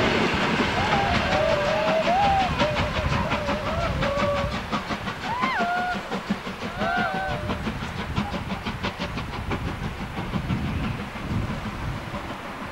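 DB class 23 steam locomotive hauling a train of passenger coaches past and away, with a fast regular beat that fades as the train recedes. Wavering squeals come and go in the first half.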